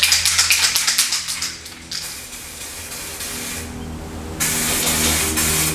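2K aerosol clear coat can rattling quickly as it is shaken, then spraying: a softer hiss about two seconds in, then a loud steady hiss in the last second and a half.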